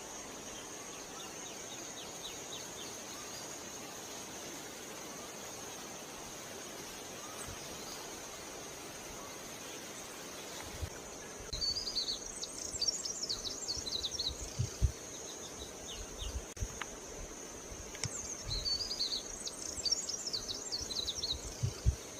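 Lovebirds chirping in two quick, high-pitched flurries, one about halfway through and another near the end, over a steady high-pitched hum.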